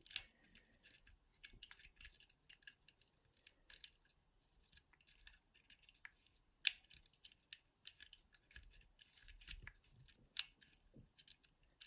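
Faint, irregular metallic clicks and scrapes of a pick and tension tool working the levers inside a mortice lever lock.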